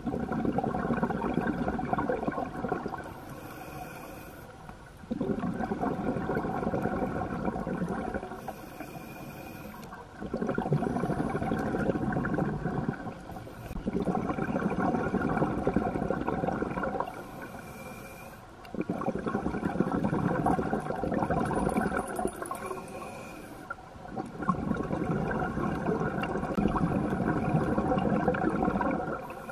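Scuba diver breathing through a regulator: six rushes of exhaled bubbles, each about three seconds long, alternate with shorter, quieter inhalations that carry a faint high whistle.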